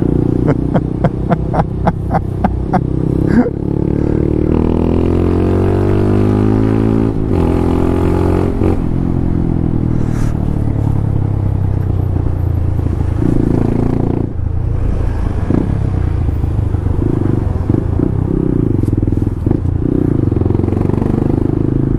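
Honda Grom's small single-cylinder engine running under way, with a quick run of clicks in the first three seconds. The engine pitch rises and falls several times as it pulls through the gears, then it runs steadily.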